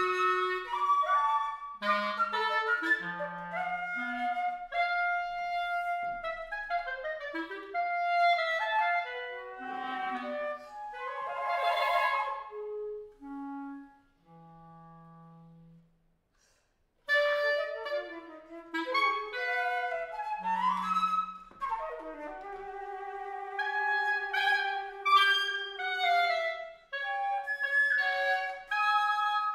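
Concert flute and B-flat clarinet playing a contemporary classical duet in quick, short, leaping notes. The playing thins to a few soft notes and a brief silence about halfway through, then picks up again.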